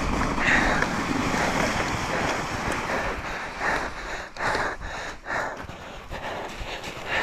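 Wind rushing over a helmet camera's microphone and a mountain bike's tyres running through soft snow, growing quieter as the bike slows almost to a stop. From about halfway, short crunching bursts come about twice a second.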